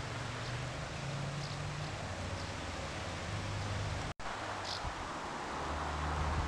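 Steady outdoor background noise, a hiss over a low rumble, with a few faint short high chirps; it cuts out for an instant about four seconds in.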